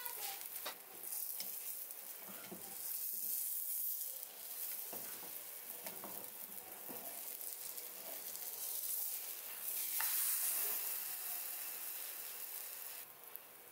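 Pancake batter sizzling in oil in a non-stick frying pan, with a few light taps from a spatula.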